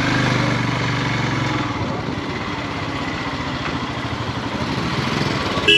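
Royal Enfield Himalayan's single-cylinder engine running at low revs with a steady hum that eases off after about two seconds. A brief sharp blip sounds just before the end.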